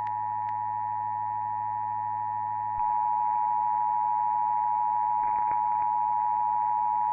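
Emergency Alert System attention signal: a steady two-tone chord held without a break, a little louder from about three seconds in. It is the alert tone that precedes a warning broadcast.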